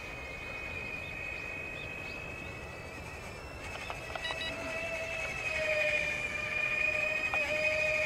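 Electric ducted fans of a small RC Boeing 747 model whining steadily in flight, a high whine joined about halfway by a lower one that wavers slightly with the throttle, growing louder in the second half.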